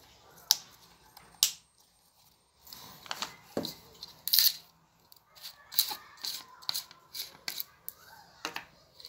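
A rubber half-mask respirator and its plastic filter cartridges being handled: irregular sharp clicks and knocks of plastic parts, two loud ones in the first second and a half, then a busier run of clicks and rustling through the rest.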